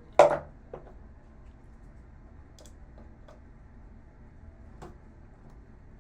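Scattered light clicks and taps of a screwdriver and hands on the monitor's plastic and metal parts during disassembly, with one louder sharp sound just after the start.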